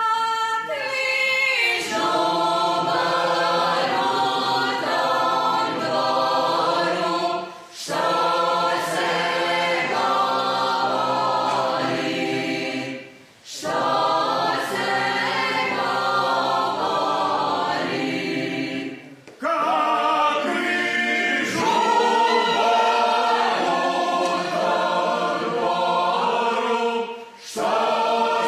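A Slavonian folk group singing a sung circle dance (pjevano kolo) unaccompanied, in several voices, line by line with short breaks between phrases.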